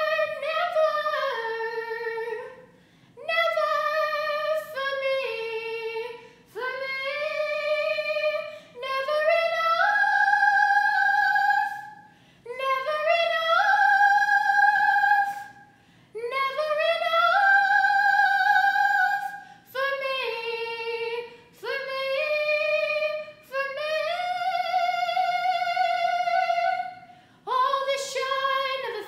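A teenage girl singing solo and unaccompanied, in long held phrases with short pauses for breath between them.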